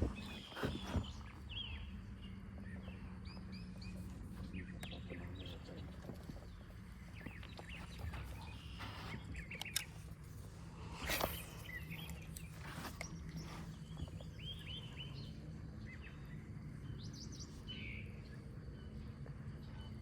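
Birds chirping and calling in short, scattered notes over a steady low background rumble, with a few sharp knocks, the loudest near the start and twice around the middle.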